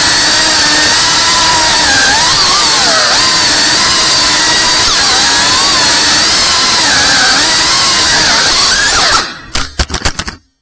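Cinewhoop FPV drone's motors and propellers whining, the pitch rising and falling with each throttle change. Near the end the sound stutters with sharp dips and cuts out for a moment.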